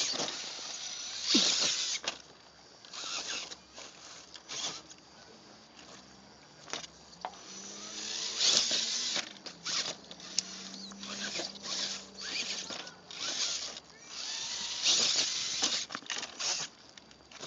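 Axial XR10 radio-controlled rock crawler driving and climbing on rock: short stop-start bursts of electric motor and drivetrain whir, with the tyres scrabbling on stone.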